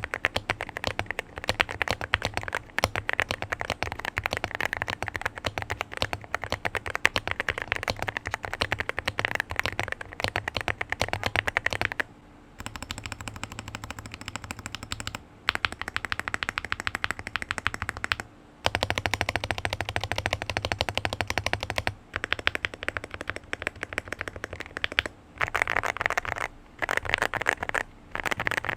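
Typing test on Akko Dracula 5-pin linear switches in an Akko MU01 keyboard: fast runs of clacky keystrokes broken by short pauses.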